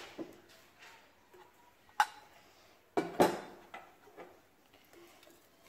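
Metal pressure cooker lid being taken off and handled: a sharp metallic click about two seconds in, a louder clank a second later, then a few light taps.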